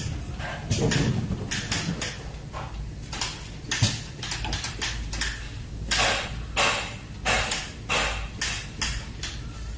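Automatic silicone tube O-ring cutting and bonding machine at work, its mechanical hands drawing a batch of tubes to cutting length: a run of short hisses and clacks, about two a second, over a steady low hum.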